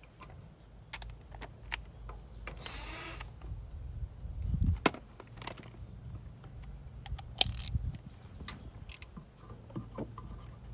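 Scattered metal clicks and clinks of a ratchet wrench and bolts being worked loose, with a few sharper knocks about five, seven and a half and nine seconds in.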